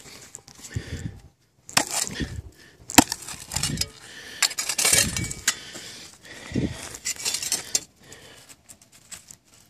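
Hand digging tool chopping and scraping into hard red clay in a run of separate crunching strikes, with clods breaking up. There is one sharp click about three seconds in.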